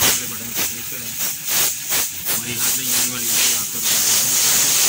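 Compressed-air blow gun hissing in short repeated blasts, turning to a steadier hiss near the end, blowing dust out of a car radiator that was clogged with dust.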